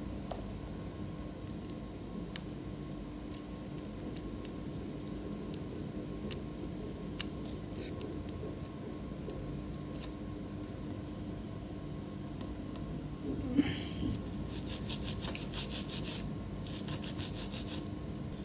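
Rapid back-and-forth rubbing strokes, several a second, in two runs near the end, over a low steady hum.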